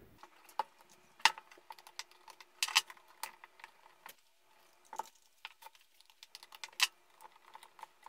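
Light clicks and taps at irregular spacing as an amplifier circuit board and small hand tools (needle-nose pliers, a screwdriver) are handled, with a few sharper clicks about a second in, near three seconds and near seven seconds.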